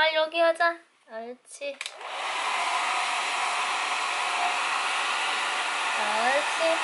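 Handheld hair dryer switched on about two seconds in, then blowing steadily. A few short vocal sounds come just before it.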